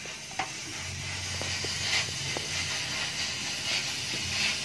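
Faint light metallic clicks as a steel end cap is handled and fitted onto a motorcycle muffler can, over a steady hiss and a low hum.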